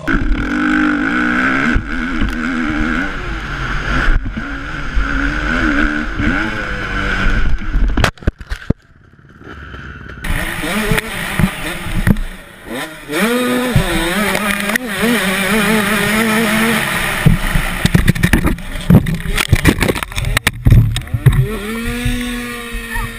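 Dirt bike engines revving in a run of short clips, the pitch rising and falling with the throttle. The sound drops out briefly about eight seconds in, and the later part is peppered with sharp knocks and thumps.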